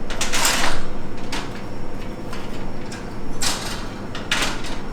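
Parts of a Vision bird cage being handled and fitted together while the roof goes on: rough scraping and rattling of the cage panels, one longer scrape in the first second and two shorter ones near the end.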